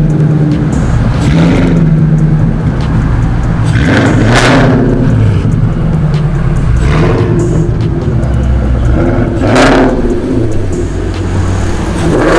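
Ford Mustang GT's V8 running with Kooks 1-7/8-inch long-tube headers, high-flow cats and an X-pipe with the resonator and muffler deleted: a loud, deep exhaust note whose pitch shifts a few times. Two brief rushing bursts come about four and a half and nine and a half seconds in.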